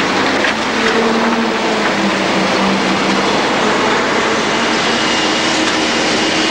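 Loud, steady engine and machinery noise running without a break, with a faint hum that shifts in pitch partway through.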